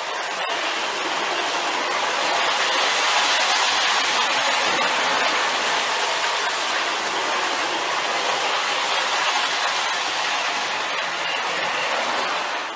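The Williams PA-1 model diesel's onboard engine sound, an even rushing noise with little low rumble, cutting off suddenly near the end.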